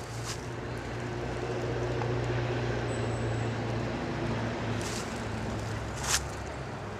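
A motor vehicle's engine passing by, growing louder and then fading, its hum dropping slightly in pitch about four seconds in, over a steady rushing background; a single sharp click about six seconds in.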